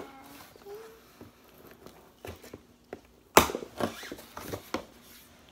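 Cardboard shipping box being opened: rustling and small clicks as the packing tape is cut and the flaps are worked, with one loud sharp rip about three and a half seconds in followed by a few smaller crackles.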